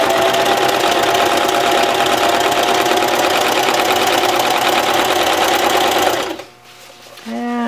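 Singer sewing machine fitted with a walking foot running steadily, stitching a wide three-step zigzag that binds fold-over elastic onto PUL fabric; it stops about six seconds in.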